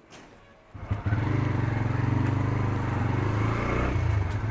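TVS Raider 125's single-cylinder engine starting about a second in, then running steadily as the motorcycle moves off.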